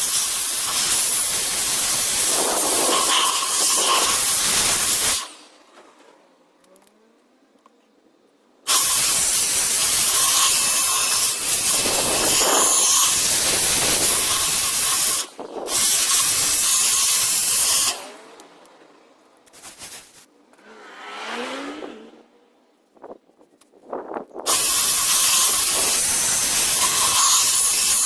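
Compressed air blowing rinse water and loosened grime out of a wet typewriter's mechanism, in long blasts of several seconds that start and stop abruptly, with short pauses between.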